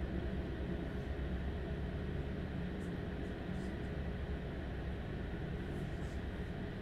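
Stadler Class 755 FLIRT bi-mode train running under diesel power, heard from inside the carriage beside the power pack. The diesel generator engines give a steady low drone.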